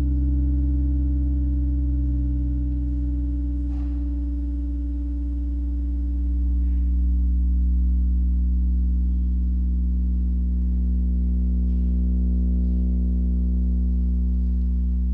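Electronic drone of several steady low sine tones held at once, without change of pitch, swelling slightly about six seconds in. A faint tick sounds about four seconds in.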